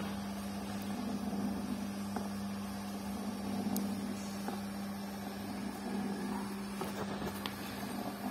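Barrier-gate worm-gear motor with a 1:30 worm gearbox running steadily at slow speed, giving an even low hum.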